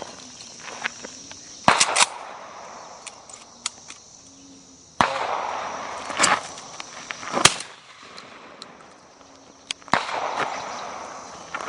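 Several 12-gauge pump shotgun shots at a clay range, sharp bangs spread irregularly, one of them ringing out with a long fading tail. Insects buzz steadily and high underneath.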